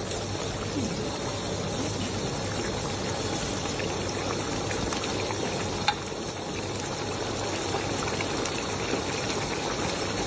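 Thick red sauce with minced meat and sausage simmering in a wok, a steady bubbling crackle, with one sharp click about six seconds in.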